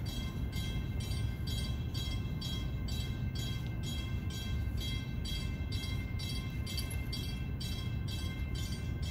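Music with a steady quick pulse, about two to three beats a second, over a constant low rumble.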